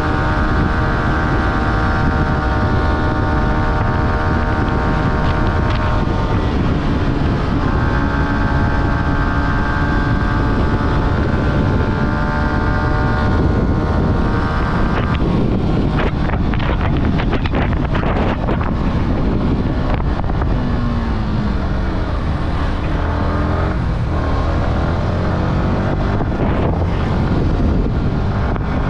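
Yamaha R15's 155 cc single-cylinder engine running at steady revs on the road, with wind rushing over the microphone. Its note breaks briefly about six seconds in, and from about fifteen seconds it becomes rougher, with the revs falling and rising again.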